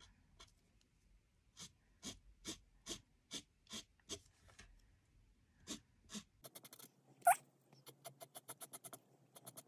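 Fat-nib marker pen stroking across a paper canvas: a run of short scratchy strokes about two a second, then quicker back-and-forth scribbling in the last third. A brief rising squeak about seven seconds in is the loudest sound.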